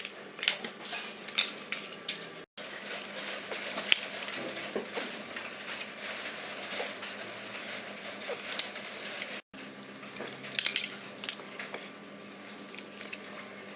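Hand tools and metal engine parts clinking and knocking against each other in quick irregular strikes, as in engine work. The sound breaks off abruptly twice.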